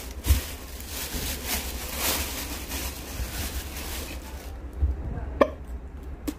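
Thin plastic bag rustling and crinkling as eggplants are handled inside it, stopping about four and a half seconds in; after that, two short light knocks.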